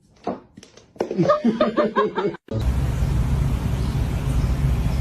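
A person laughing in short, choppy bursts for about a second and a half. About halfway through, it cuts to a steady low rumble of background noise.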